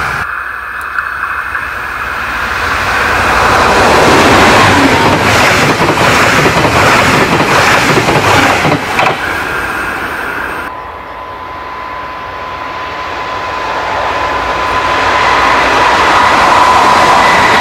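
A train of red double-deck coaches hauled by a DB class 218 diesel-hydraulic locomotive rolls past close by, its wheels clattering, loudest about five to nine seconds in. After an abrupt change near the eleven-second mark, another 218 approaches with its diesel engine running, a steady high whine growing louder toward the end.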